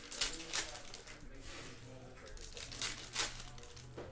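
Foil trading-card pack wrapper of a Panini Prizm football pack being torn open and crinkled, in several sharp rustles, the loudest just after the start and about three seconds in.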